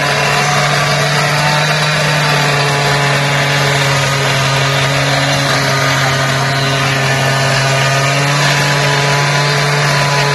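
An engine running steadily: a constant low hum under a loud, even hiss, with no change in speed.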